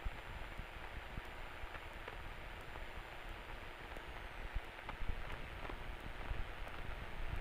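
Steady hiss over a low rumble: a light single-engine propeller plane's engine running at low taxi power, heard through the headset intercom feed, with a few faint clicks.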